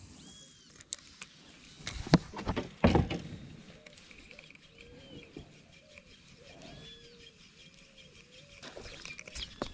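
Birds calling: a short, arching call repeated about every half second, with a few higher chirps now and then. A couple of knocks about two and three seconds in.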